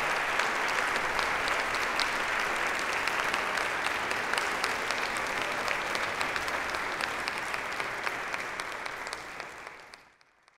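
Audience applauding, a dense steady clatter of many hands with sharper individual claps close by, fading away near the end.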